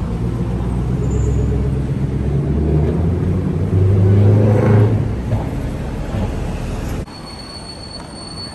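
Loud low rumble of a vehicle in motion, cutting off abruptly about seven seconds in; a quieter background with a faint steady high tone follows.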